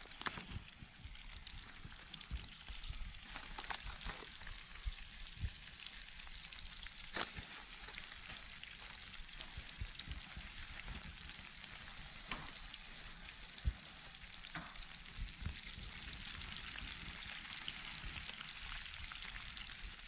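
Sliced onions sizzling in a steel frying pan on wood embers, a steady frying hiss that grows a little stronger in the second half, with scattered sharp pops.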